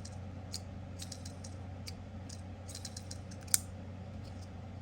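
Light, scattered clicks and taps of a magnetic fidget toy being handled, with one sharper, louder click about three and a half seconds in, over a low steady hum.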